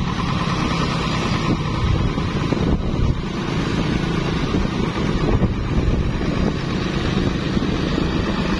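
Motorcycle riding at road speed, its engine running steadily under heavy wind buffeting on the microphone.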